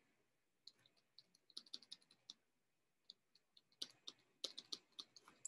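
Near silence broken by faint, irregular ticks of a stylus tip tapping and writing on a tablet screen, in two loose runs about a second and a half in and again near the end.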